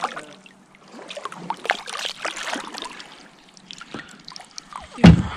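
Water trickling and dripping around a kayak, with small splashes and scattered light clicks, and one loud thump about five seconds in.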